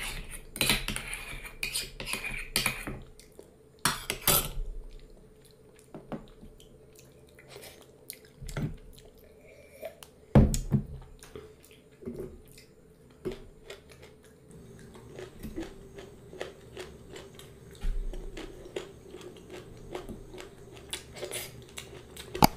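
Metal spoon clinking and scraping against bowls and plates in quick irregular taps, with a few louder clatters, and chewing and mouth sounds in between.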